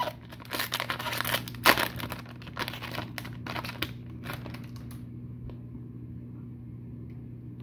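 Foil wrapper of an Upper Deck hockey card pack crinkling and tearing as it is ripped open and the cards are slid out. The rustles come in quick bursts and stop about five seconds in, leaving a low steady hum.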